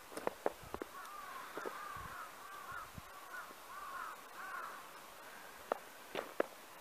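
A bird calling in a quick run of about ten short arching notes, with footsteps in snow near the start and again near the end.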